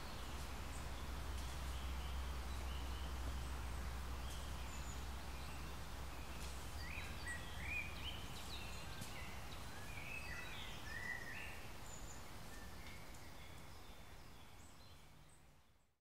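Outdoor nature ambience: birds chirping and calling over a steady hiss and low rumble, the calls busiest in the middle, with the whole sound fading out near the end.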